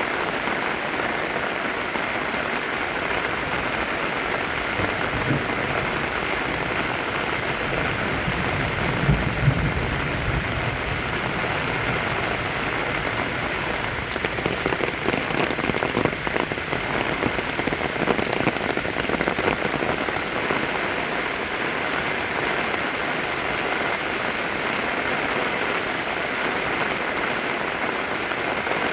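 Steady rain falling, a continuous even hiss with scattered drops tapping. A few low thumps come about nine seconds in, and the drops turn sharper and denser for a while in the middle.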